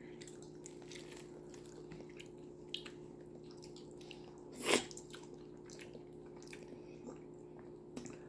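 Eating by hand: soft sticky squishes and small clicks as a piece of fufu is pinched off and dipped in stew, then one short, loud mouth sound a little under five seconds in as the morsel goes into the mouth. A steady low hum runs underneath.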